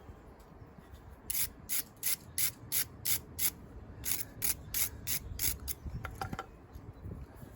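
A stiff brush scrubbing metal brake parts in quick back-and-forth strokes, about three a second, in two runs of six or seven strokes with a short pause between.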